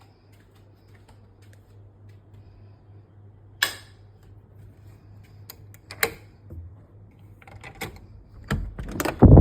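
A few sharp clicks and knocks over a low steady hum, coming quicker and louder near the end, with heavy low thumps at the very end.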